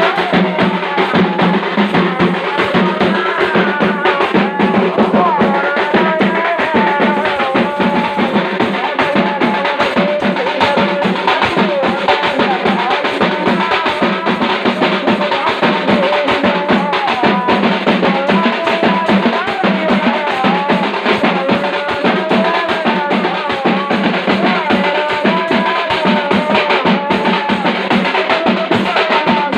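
Tappu melam ensemble playing: frame drums beaten with sticks in a fast, dense, loud rhythm, with a wavering melody line above the drumming.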